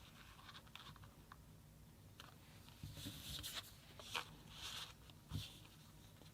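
Faint handling noise: a run of soft rustles, scrapes and light clicks, busiest in the second half, with two sharper clicks near the end, as the small card phone or its packaging is handled.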